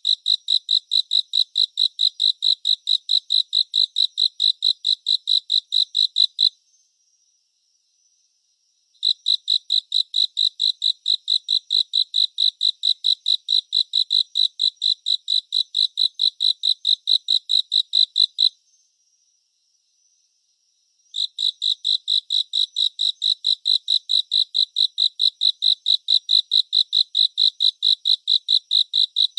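A cricket chirping in a steady, high-pitched pulse train of about four or five chirps a second. It stops for a couple of seconds about six seconds in, and again at about eighteen seconds, then resumes each time.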